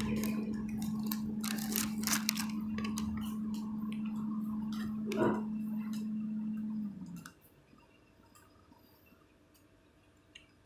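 A steady, low pitched tone from a CFR Class 43 'Bobica' electric locomotive, with a few clicks and knocks over it. About seven seconds in, the tone cuts off abruptly with a short drop in pitch, leaving near quiet.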